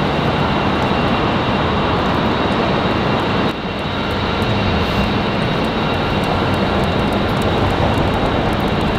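Steady loud mechanical roar of city machinery, with a faint steady high whine and a low hum. There is a brief dip about three and a half seconds in.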